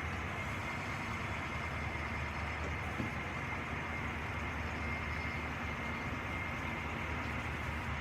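Heavy machine's diesel engine running steadily, a low rumble with a thin steady high whine over it.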